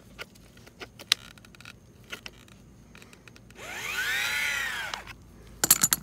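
Clicks and ticks as a KitchenAid refrigerator's ice auger motor is worked by hand with a wrench, then, a little past halfway, a whirring gear whine lasting about a second and a half that rises and falls in pitch as the motor's freed-up gear train spins. A few sharp clicks near the end.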